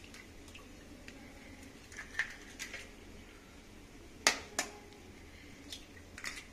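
A steel spoon tapping raw eggs to crack their shells: several sharp clicks, mostly in pairs, the loudest pair a little past the middle.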